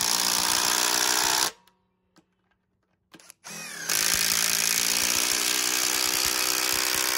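Ryobi P238 brushless cordless impact driver driving a large lag bolt into a 4x6 wood beam, its hammer mechanism impacting steadily under load. It stops about a second and a half in, then after a pause and a brief trigger blip it starts again and runs on.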